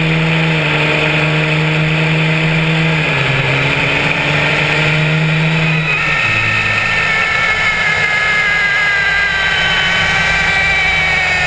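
Cummins turbo-diesel pickup engine at full throttle on a drag-strip pass, its steady low note dropping in pitch at gear changes about three and six seconds in. After the second change the low note fades and a high whistle takes over, slowly falling in pitch.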